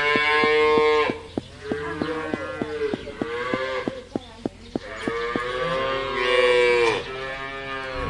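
Cattle mooing: about five long calls one after another, the longest a second or so before the end, with a rapid, even clicking underneath.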